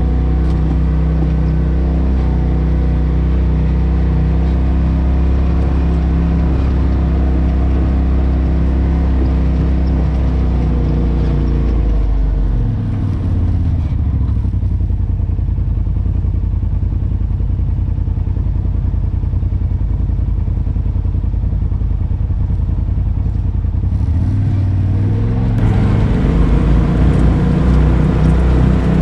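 Polaris RZR side-by-side's engine running while driving a trail. About halfway through the engine note drops to a lower, slower note and holds there, then rises again and gets louder near the end.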